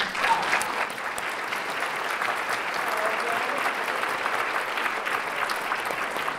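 Audience applauding: a room full of people clapping, breaking out suddenly and holding steady.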